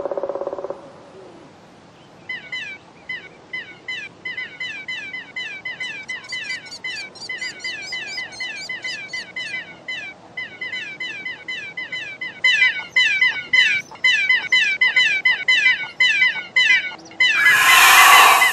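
Baby birds chirping non-stop: short, high, falling peeps, several a second, growing louder in the second half. Near the end there is a loud, harsh, noisy squawk.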